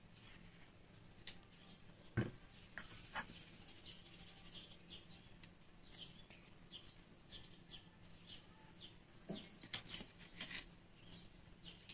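Faint, scattered chirps of small birds, with a few sharp clicks and knocks, the loudest about two seconds in, over a faint steady low hum.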